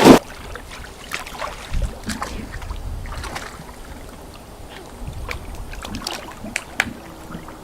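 Water splashing and sloshing, with one loud splash right at the start and then a low, uneven swirl of water with scattered small clicks and knocks.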